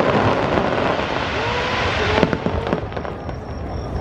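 Fireworks display: a dense crackling of bursting firework stars for about two seconds, thinning out after that.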